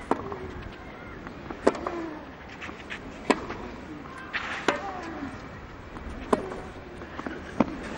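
Tennis rally on a clay court: six sharp racket-on-ball hits, about one every second and a half, as the two players trade baseline shots.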